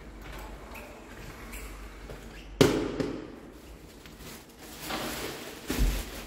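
A sharp knock about two and a half seconds in, the loudest sound here. Near the end, a large plastic bag rustles as it is handled and carried, with a thump.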